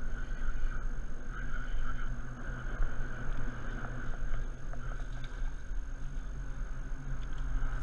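Spinning reel being cranked to bring in a hooked fish, over a steady low rumble.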